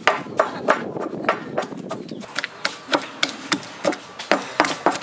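Stone pestle pounding chilies and garlic in a granite mortar: steady knocks about three times a second, briefly softer and quicker in the middle.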